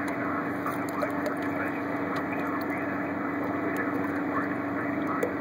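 Lake water splashing and lapping at a boat's side as a striped bass is held in the water by hand for release, with small irregular splashes over a steady low hum from the boat's idling motor.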